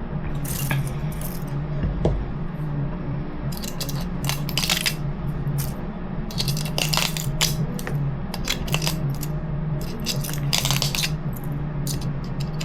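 Hard 3D-printed plastic rims clicking and clattering against each other and the bench as they are handled, in irregular clusters of sharp knocks. A steady low hum runs underneath.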